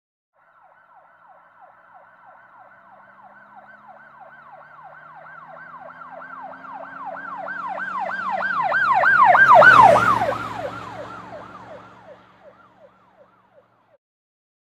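An emergency vehicle siren yelping, sweeping up and down about three times a second, with engine and road rumble underneath. It grows louder as the vehicle approaches and is loudest about ten seconds in. It then drops slightly in pitch and fades away as the vehicle passes.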